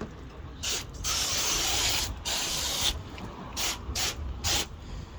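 Water sprayed in hissing bursts onto a wet-sanded headlight lens to rinse it. There are a few longer sprays, the longest about a second, then three short quick squirts near the end.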